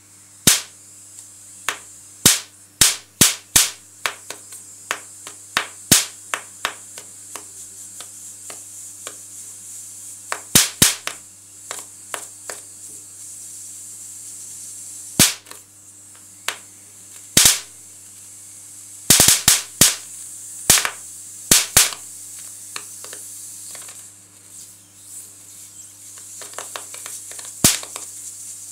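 High-voltage sparks from a TV flyback transformer with a voltage tripler (about 20 kV) snapping across pencil graphite shaded on paper. The sharp cracks come irregularly: some stand alone and some come in quick bursts, densest at the start and about two-thirds of the way through. A steady low hum runs underneath.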